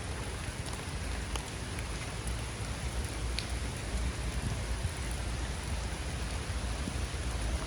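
Steady rain falling, with a low rumble underneath and a few scattered single drops ticking.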